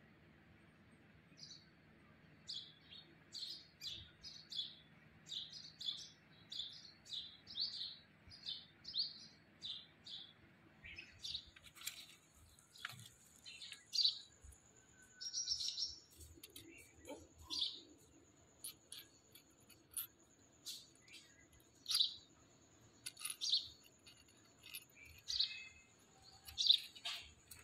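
Small birds chirping in short, high, repeated notes, about two a second for the first ten seconds or so, then more sparsely and irregularly. A faint steady high whine joins after about eleven seconds.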